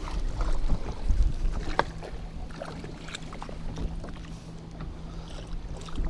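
Wind buffeting the microphone and choppy lake water slapping against the boat's hull, with scattered small clicks and knocks. A faint low steady hum comes in about two seconds in.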